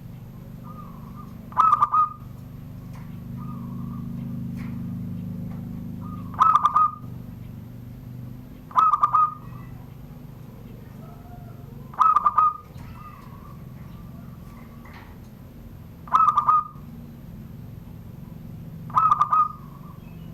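A zebra dove (perkutut) cooing in the Banten 'surung gdor' song style: six short, rapidly pulsed coo phrases a few seconds apart, with fainter coos between them.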